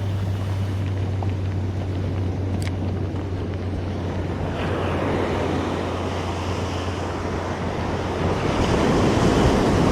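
Ocean surf breaking and washing up the beach, swelling louder twice, with wind buffeting the microphone and a steady low hum underneath.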